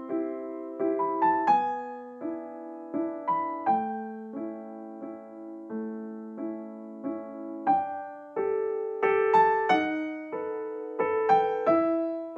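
Background piano music: a melody of single notes and chords, each struck and fading away, about two a second.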